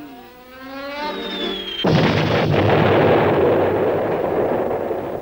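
Cartoon sound effects: a whistling glide in pitch, then about two seconds in a sudden cannonball explosion whose rumble runs on, slowly fading.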